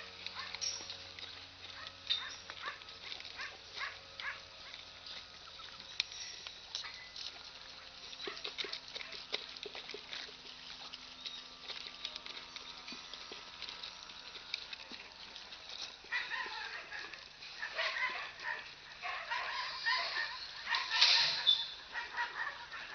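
Mixed farm animals at feeding time: many short clicks and scattered brief calls, with louder, more frequent animal calls starting about two-thirds of the way through.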